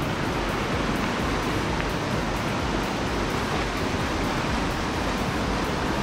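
River rapids rushing over a rock bed: a steady, unbroken wash of whitewater.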